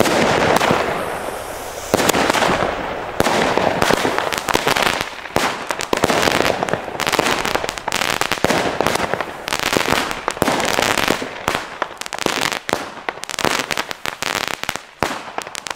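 Lesli Crackle ten-shot consumer firework battery firing: a series of launch shots about a second or two apart, each followed by dense crackling as the stars burst overhead. It thins to scattered crackles near the end and stops.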